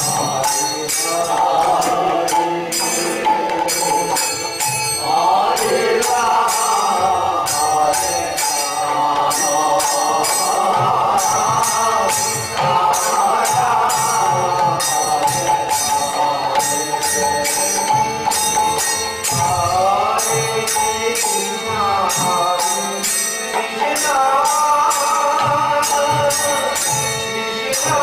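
Devotional music: a wavering melody over steady, regular jingling percussion strikes.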